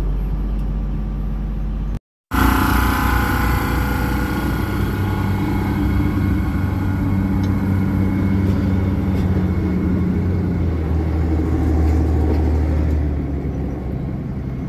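Diesel light rail railcar (NJ Transit River Line Stadler GTW) pulling away from the platform: a steady low engine drone with rail noise, with a brief higher whine just after a short dropout about two seconds in, easing off near the end as the train moves away.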